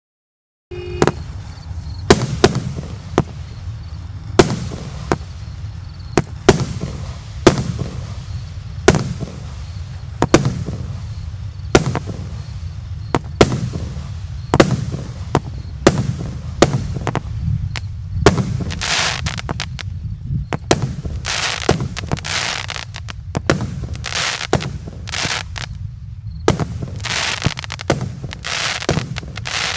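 A 36-shot consumer firework cake (battery of aerial shells) firing, starting just under a second in: a long series of sharp launch and burst bangs, about one a second. In the second half many bursts trail a short high hissing crackle from glitter stars.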